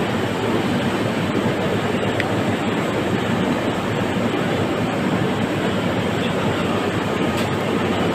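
Steady, even noise with no distinct events, like a constant rumble of background ambience.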